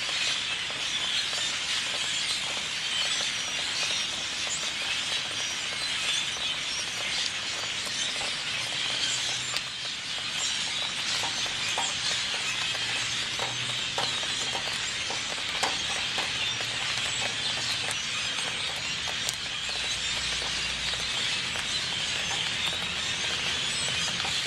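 A large flock of birds screeching and chattering all at once, a dense, unbroken mass of high, shrill calls.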